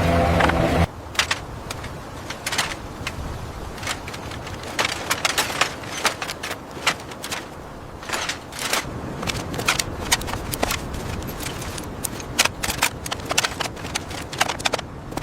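A steady engine-like hum cuts off within the first second, followed by irregular sharp clicks and taps, several a second, over a low hiss.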